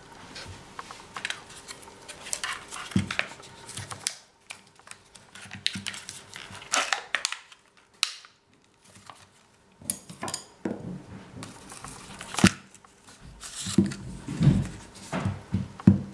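Plastic ice cream packaging being handled: the lid peeled back and the thin plastic tray bent and crinkled, in bunches of crackles and sharp clicks with a short pause in the middle. Some duller knocks come near the end as things are set down on the wooden cutting board.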